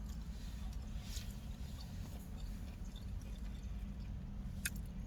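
A person chewing food, with soft scattered mouth clicks, over the steady low rumble of a car cabin.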